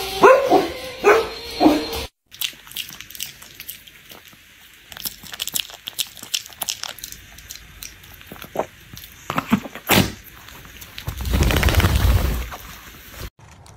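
Siberian huskies barking in short bursts. After a cut comes a long stretch of faint clicks and crunches from a small dog with a cabbage leaf, then a louder, unpitched noise lasting about a second and a half near the end.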